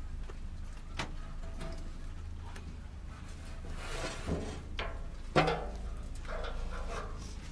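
Clicks and knocks from the metal draw-off valve of a maple syrup evaporator being handled and shut, the loudest knock about five seconds in, over a steady low rumble.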